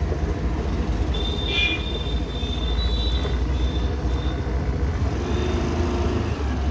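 Suzuki Avenis 125 scooter coming down a steep dirt slope under braking: a steady low rumble, with a high brake squeal that comes and goes between about one and four seconds in.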